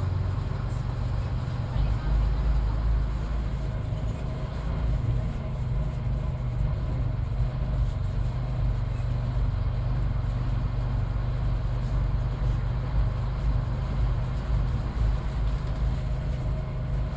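Midland Red BMMO D9 double-decker bus running along the road, its diesel engine and drivetrain giving a steady low drone heard from aboard the bus.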